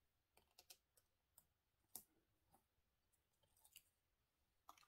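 Near silence with faint, scattered small clicks and ticks, about a dozen, from hands handling paper and foam adhesive dots (Dimensionals) on a craft table.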